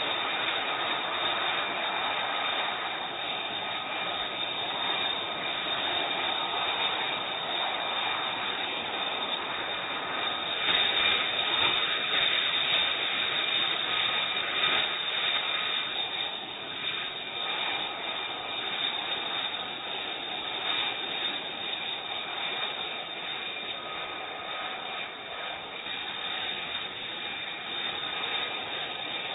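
F-35B jet engine running, a steady high whine over a rushing noise, louder for a few seconds around the middle.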